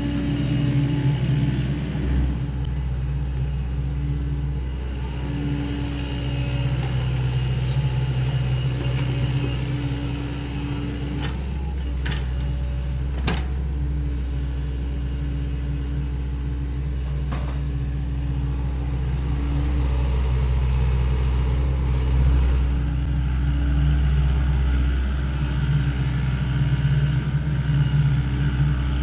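Sany SY75 excavator's diesel engine running steadily at working speed, swelling and easing a little as it works. Three sharp knocks come around the middle.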